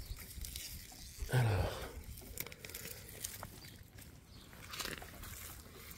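Onion plants being pulled up by hand from garden soil: rustling of leaves and crunching of earth, with a short dull thump about a second and a half in.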